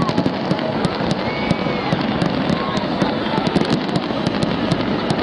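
Fireworks display: aerial shells and crackers going off, many sharp bangs and crackles in quick, overlapping succession.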